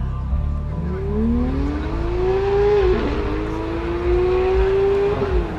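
A car engine accelerating hard, its pitch climbing, dropping briefly at a gear change about three seconds in, then climbing again before falling away near the end.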